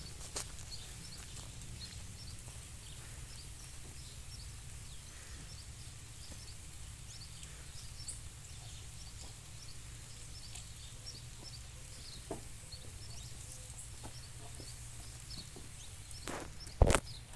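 Birds chirping over a steady low rumble, with a few light knocks scattered through and one sharp, loud knock near the end.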